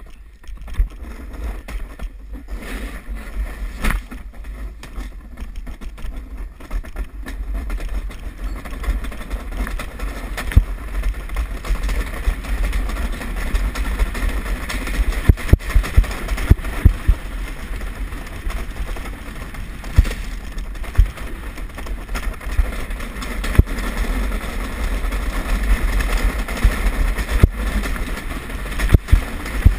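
Skeleton sled's steel runners sliding fast over a bobsled track's ice, heard through a camera mounted on the sled: a continuous rushing scrape with heavy wind and vibration rumble, broken by many sharp knocks as the sled jolts through the curves. The noise builds over the first several seconds as the sled gains speed.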